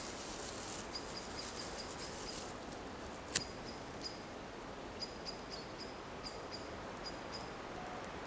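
Steady woodland background with a small bird calling in repeated short, high chips in little runs, and a single sharp crack about three and a half seconds in.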